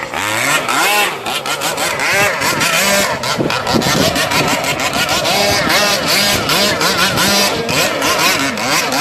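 Two-stroke brush-cutter engine driving a radio-controlled longtail boat, running at high revs with its pitch rising and falling again and again as the throttle is worked.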